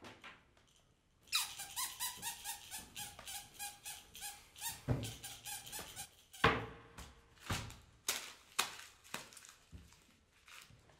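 Bone-shaped squeaky toy squeezed over and over in a quick run of squeaks, followed by several separate knocks.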